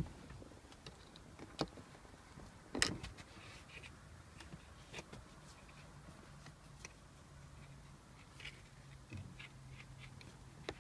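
Scattered clicks and knocks of metal and plastic as a Mercedes C-Class W204 front headrest's chrome posts are worked free of the seat back's plastic guide sleeves and a tool is pushed into a sleeve. The loudest knock comes about three seconds in.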